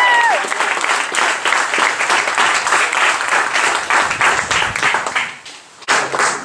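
A small crowd claps and applauds, dying away about five and a half seconds in. A long held shout of cheering trails off in the first moment.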